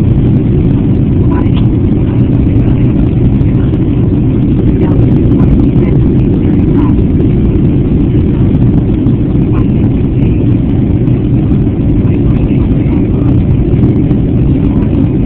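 Steady low roar of a Boeing 757 jet airliner's engines and rushing air, heard inside the passenger cabin during the climb out after takeoff.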